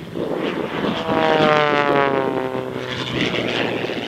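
A propeller-driven airplane passing by, loudest between one and two seconds in, its engine note sliding down in pitch as it goes past.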